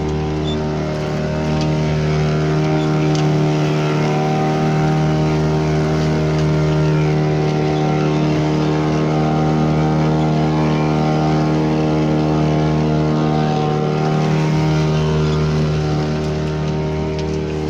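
Boat engine running at steady revs, with a constant hum; it grows a little louder about two seconds in and eases back near the end.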